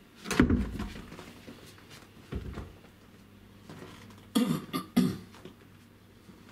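A door being opened: a heavy low thump near the start, a smaller one about two seconds in, then a quick run of sharp clicks and knocks about four to five seconds in.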